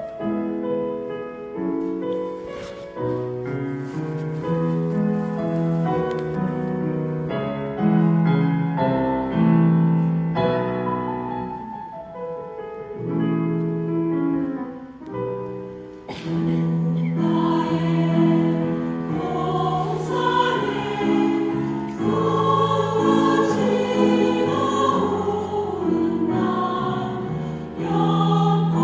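Choir singing a Korean Buddhist hymn (찬불가) in sustained, sung lines. About halfway through, the singing swells fuller and louder.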